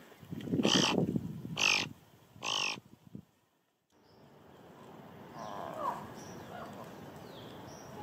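Thick-billed raven giving three loud caws about a second apart. After a break, faint chirps of small birds over a quiet background.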